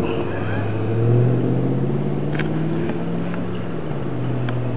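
Motorboat engine running steadily; its pitch and loudness rise about a second in, then ease back down.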